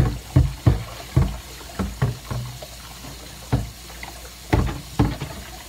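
Baby opossum chewing fruit close up: loud, irregular wet smacking and slurping, several smacks a second, with a short pause about halfway through.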